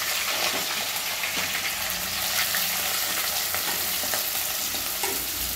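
Sliced onions and green chillies sizzling steadily in hot oil in a frying pan, stirred with a wooden spatula.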